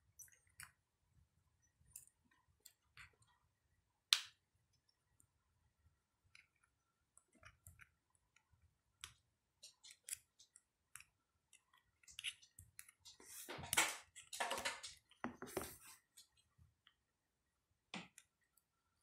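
Flat metal pry tool clicking and scraping in the seam of a Samsung Gear S2 smartwatch case as it is pried open: scattered faint clicks, a sharper click about four seconds in, then a louder run of scraping and cracking about two-thirds through as the case comes apart.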